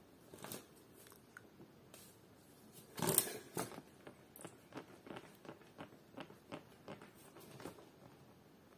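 Folding hand fan with wooden ribs waved quickly back and forth, making soft rhythmic flaps and swishes about two a second, with one louder rustling burst about three seconds in.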